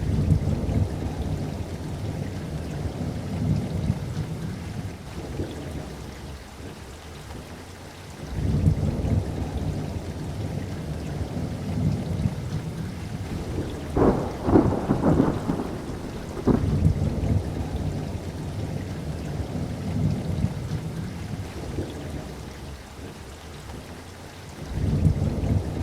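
Thunderstorm: steady rain with repeated deep rolls of thunder, one at the start, another about 8 s in and a third near the end. A sharper, louder series of thunder cracks comes a little past the middle.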